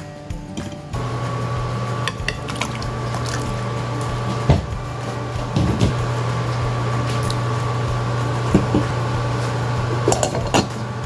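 Induction cooktop humming steadily under a pan of potatoes in water, with knocks and clinks of the pan and cookware, the loudest about halfway through. Near the end a glass pot lid clinks as it is set on.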